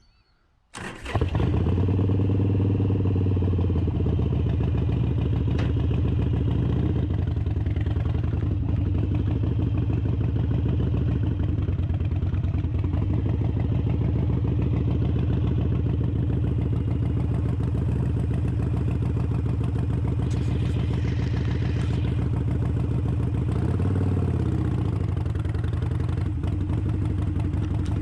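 Harley-Davidson V-twin motorcycle engine starting about a second in, briefly revving, then running steadily, with another short rise and fall in revs near the end.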